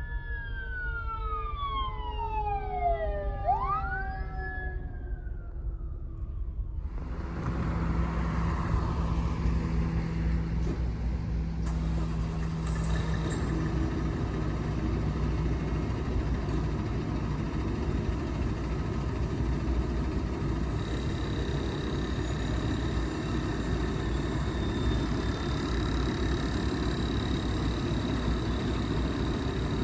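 Fire truck sirens wailing for the first several seconds, their pitch sweeping up and down over one another while a lower tone slowly falls. Then an abrupt cut to a steady rumble of engine and road noise for the rest.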